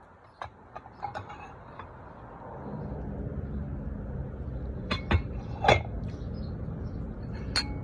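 Forks and knives clinking against plates and dishes in a handful of sharp clinks over low background noise.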